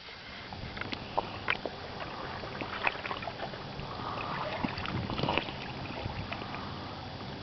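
A beach stone making a noise like an old man snoring as the sea washes around it: a rough wash of sound, speckled with small clicks, that swells about four to five seconds in.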